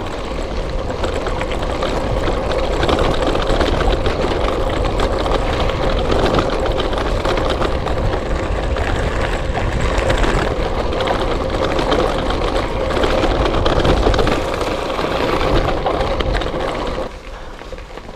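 Gravel bike rolling over a loose gravel trail: a steady crunch and rattle from the tyres and bike, with a heavy low rumble on the microphone, easing off sharply near the end.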